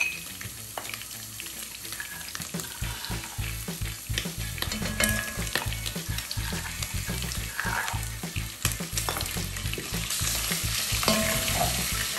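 Beef and onions frying in a pot, sizzling, while a spoon stirs and scrapes through them with frequent short clicks. The frying grows louder in the second half.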